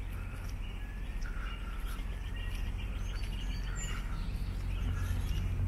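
Small birds chirping now and then over a steady low hum.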